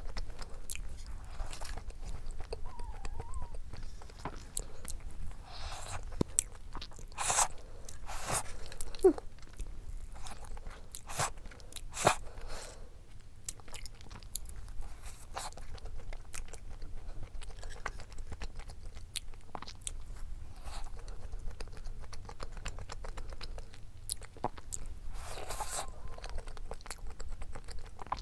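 A person chewing and biting a soft cream-filled Earl Grey doughnut: mouth sounds with scattered sharp clicks throughout.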